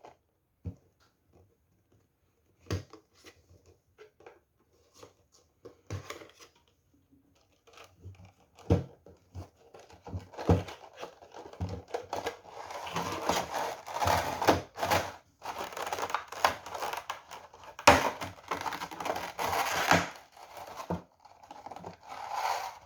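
Funko Pop packaging being opened and handled: scattered taps and knocks at first, then from about ten seconds in, continuous crinkling and tearing.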